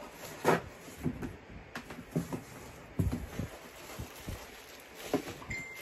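Cardboard box flaps and plastic bag wrapping being handled, with irregular crinkles, rustles and light knocks, the loudest about half a second in and at about three seconds.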